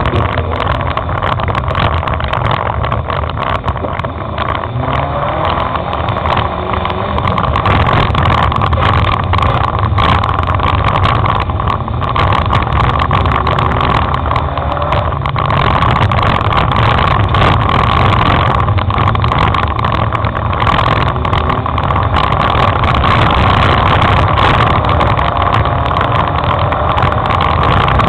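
Dirt-track race car's engine running hard under load, heard from inside the car, its pitch rising and falling as the driver accelerates and lifts through the corners.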